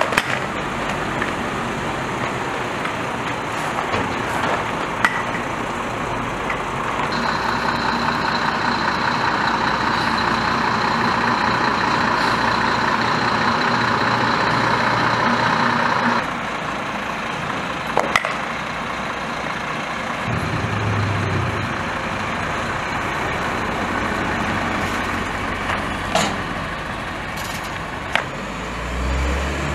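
Heavy fire-service trucks running with steady diesel engine noise. A louder steady mechanical noise with a thin high whine comes in about seven seconds in and cuts off suddenly about nine seconds later. A few sharp knocks follow near the end.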